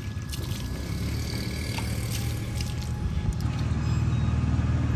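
A small engine runs steadily with a low hum, slowly growing louder. Over it come light clicks of plastic bottles being handled, and toward the end a liquid crop chemical is poured from a bottle into a plastic bucket of water.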